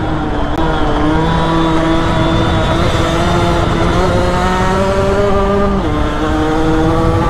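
Aprilia RS4 50's two-stroke 50 cc single-cylinder engine held at high revs, its pitch slowly climbing, then dropping sharply about six seconds in on a gear change and climbing again, with wind rush over the microphone.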